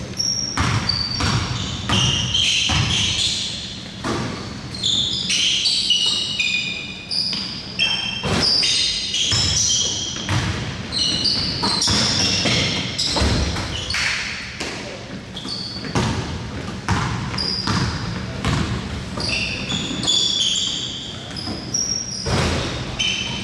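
Basketball game sounds: the ball bouncing on the court in repeated thuds, with many short, high-pitched sneaker squeaks on the floor and players calling out now and then.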